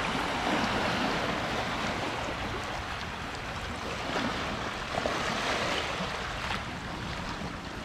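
Sea waves washing onto the beach: a steady rushing surf noise that eases slightly and swells again about five seconds in.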